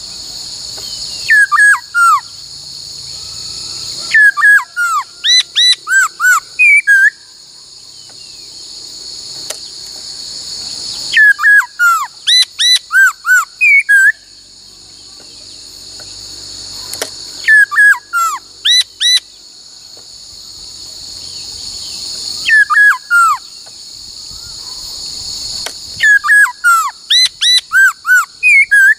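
A laughingthrush singing loud, clear whistled phrases of several notes, mostly sliding down in pitch, in bursts that come back every five to six seconds. Between bursts a high insect buzz grows steadily louder, then cuts off abruptly as each phrase begins.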